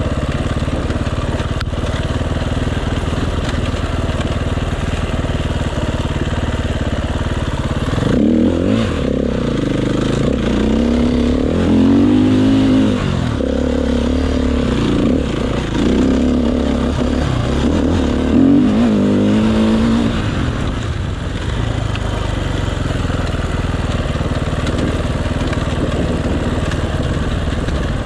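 Enduro motorcycle engine running steadily, then for about twelve seconds from roughly a third of the way in its revs rise and fall again and again as the throttle is opened and closed, before settling back to a steady pitch.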